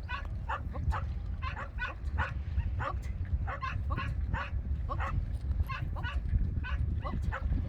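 A dog barking repeatedly and rapidly, about two to three barks a second, over a steady low rumble.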